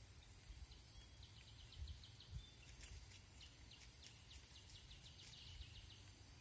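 Near silence: faint outdoor ambience with a high insect trill that breaks off and resumes every second or so, and runs of rapid faint ticking calls through the middle.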